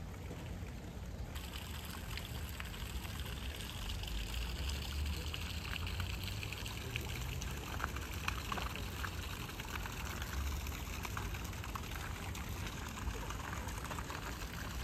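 Water trickling steadily into a garden pond, over a low rumble.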